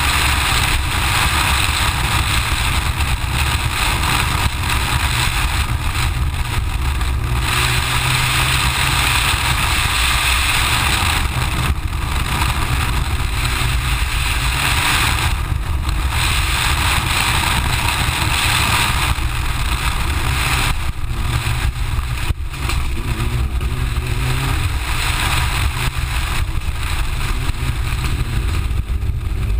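Mitsubishi Lancer Evo IX rally car driven hard, its turbocharged 2.0-litre four-cylinder engine running under load, mixed with heavy wind rush on a camera mounted outside on the car body. The sound dips briefly several times.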